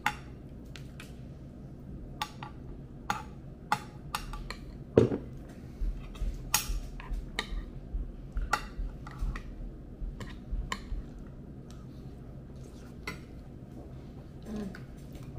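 Cutlery clicking and scraping on a plate during a meal: scattered, irregular clicks, with a louder knock about five seconds in.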